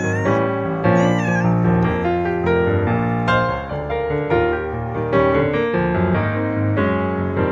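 A cat meowing twice near the start, two short calls that rise and fall, about a second apart, over steady piano background music.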